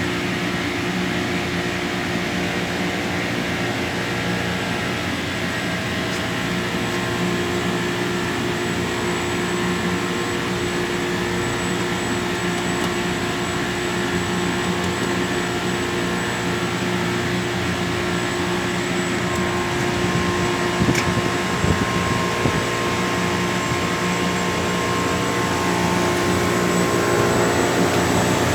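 Packaged air-conditioning unit running after repair, its compressor and condenser and blower fan motors giving a steady hum with a few light knocks about twenty seconds in; the unit is working normally.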